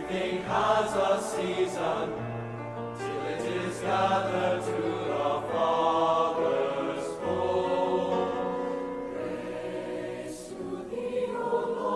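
Choir singing a slow hymn with sustained, held notes over a low accompaniment.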